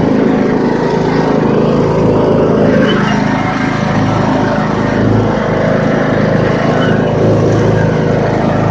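Riding lawn mower's small engine running steadily while the mower is driven along, with small rises and dips in level.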